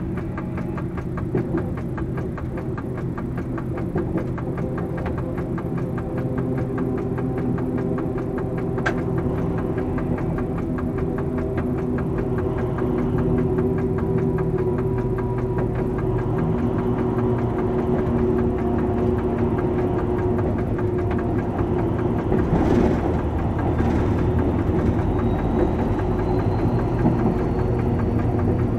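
Diesel engine of an SNCF BB 67400-class diesel-electric locomotive, heard from inside its cab, running steadily as the locomotive climbs a steep grade on its own, growing slowly louder. A few short knocks come a little past two-thirds of the way through, and a faint rising whine starts near the end.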